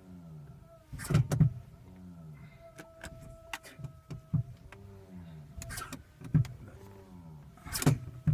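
Weird electrical noises from a 2010 Toyota Prius that won't start: a pulsing sound rising and falling about every half second, a steady tone for about a second and a half in the middle, and several sharp clicks. The uploader puts the fault down to electrical problems.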